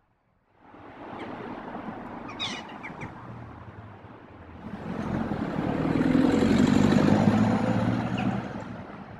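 A car drives past close by: its engine and tyre noise swell to a peak about seven seconds in, then fade away. Before it there is a steady traffic hum, with a few brief high chirps about two and a half seconds in.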